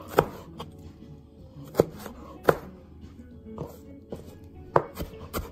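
Chef's knife chopping roasted red bell pepper on a cutting board: a few sharp, irregularly spaced knocks of the blade on the board, over soft background music.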